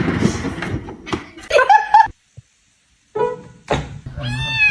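A cat meowing in short calls that bend up and down in pitch, one about one and a half seconds in and more near the end, with a sudden second of dead silence between them.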